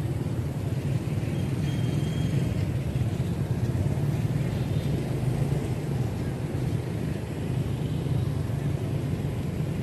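Steady low rumbling noise throughout, with a faint thin high tone lasting under a second about two seconds in.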